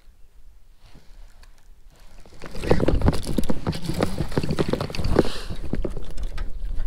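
A hooked spotted bass being reeled in to a kayak: a fishing reel is cranked hard close to the microphone, with dense clicking, knocking and rustling that starts about two and a half seconds in.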